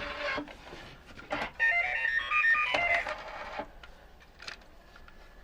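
Omnibot 2000 robot switched on, playing a short electronic beep tune of quick tones at stepping pitches for about two seconds, with a few faint clicks near the end.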